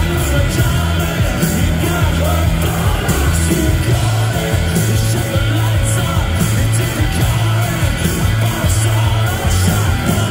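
Rock band playing loudly live, electric guitars over a steady bass line and drums with regular cymbal hits, heard from the audience.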